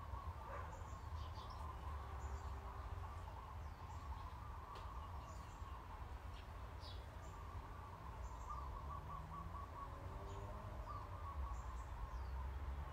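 Small birds chirping and calling: many short high chirps and whistles, over a steady low hum.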